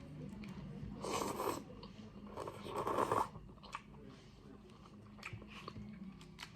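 A person eating vegetable noodle soup close to the microphone. There are two louder mouthfuls about a second in and near the three-second mark, then quieter chewing with small mouth clicks.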